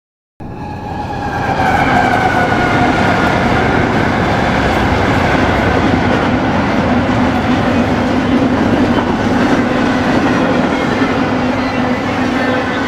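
BNSF diesel-hauled intermodal freight train passing: a loud steady rumble of locomotives and rolling cars that swells in over the first two seconds, with a whine that falls slightly in pitch during the first few seconds.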